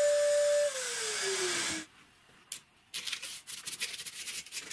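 Angle grinder running with a steady whine that starts falling in pitch about a second in as the motor spins down, then stops abruptly. After a short pause, a brush is swept repeatedly in quick rough strokes along the freshly chamfered drywall edge, brushing off gypsum dust.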